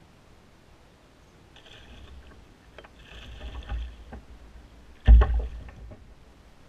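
A hooked largemouth bass splashing and thrashing at the surface beside a kayak as it is reeled in. The splashing builds from about a second and a half in, with one sudden loud splash about five seconds in.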